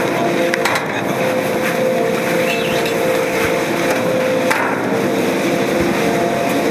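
Chairlift bottom-station machinery running: a steady mechanical drone with a few hums that come and go, and a few sharp knocks as chairs come round.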